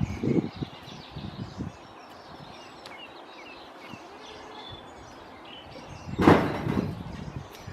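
Knife blade cutting through a goat skin: soft low thumps of handling in the first second or two, then one louder, noisy scraping stroke about six seconds in. Small birds chirp in the background.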